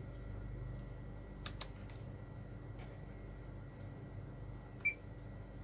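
A few light clicks and taps of handling at a repair bench, with one short, high beep near the end, over a steady low hum.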